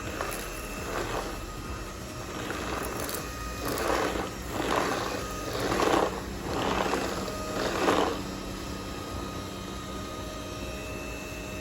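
UNINELL UV3 cordless stick vacuum running with a steady motor hum, swelling louder in a series of rushing strokes about a second apart between about 4 and 8 seconds in.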